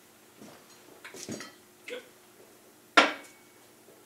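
Steel tools and sockets clinking while someone rummages through a parts tray, with a few light clicks and one sharp metallic clank about three seconds in that rings briefly.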